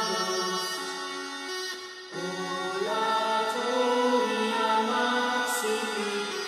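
Background music of held notes that step from one pitch to the next, with a short dip about two seconds in.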